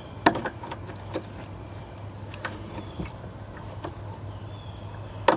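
A few sharp plastic clicks and knocks from hands working a car's interior plastic trim panel and its retaining clips, the loudest near the end. Under them runs a steady high-pitched background tone.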